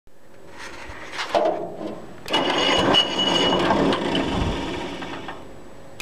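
Aerosol can of starting fluid hissing as it is sprayed into an old grader engine to prime it for a start: a short spray, then a longer one of about three seconds carrying a thin high whistle.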